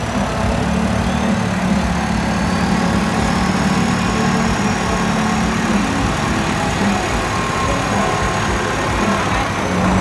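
Modified Kubota tractor's diesel engine running at a steady idle.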